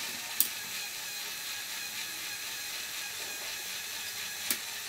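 Two sharp clicks, about four seconds apart, from the plastic LEGO Technic crane arm and grapple being moved by hand, over a steady faint hiss.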